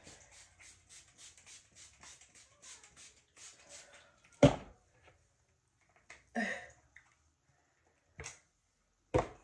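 Quick hissing squirts of water from a plastic bottle onto hair, about four a second, for the first half. A single sharp knock follows, then a few brief handling rustles and knocks.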